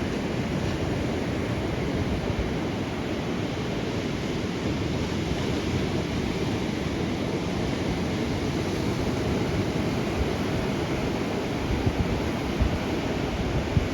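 Ocean surf breaking and washing on the beach in a steady roar, with wind buffeting the microphone in low thumps near the end.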